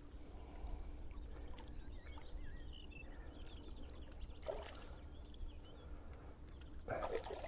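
Hooked trout splashing at the water's surface beside a landing net: faint, with two short splashes about four and a half and seven seconds in, over a low steady rumble.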